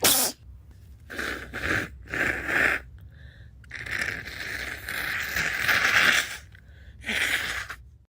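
A girl sneezing, the burst loud and sudden right at the start. It is followed by four breathy, hissing rushes, the longest lasting about two and a half seconds in the middle.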